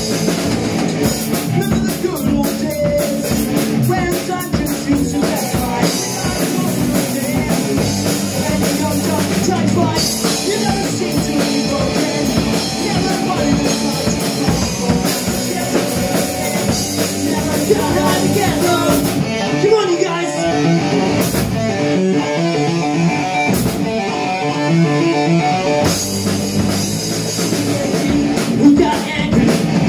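Live rock band playing loud, with electric guitars and a drum kit. About two-thirds of the way through, the cymbals and the low end drop out for several seconds, leaving a repeating guitar figure, before the full band comes back in.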